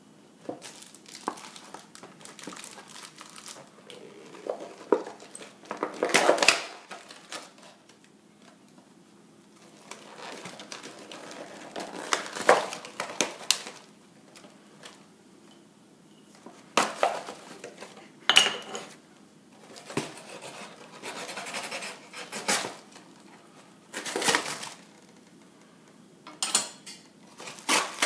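Paper fast-food bag and paper wrapping rustling and crinkling in irregular bursts as they are handled and unfolded by hand to uncover fried chicken.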